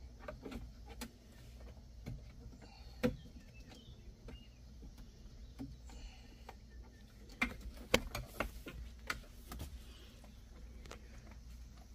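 Scattered light clicks and knocks of hands handling parts, with sharper knocks about three seconds in and a cluster of them around eight seconds, over a steady low hum.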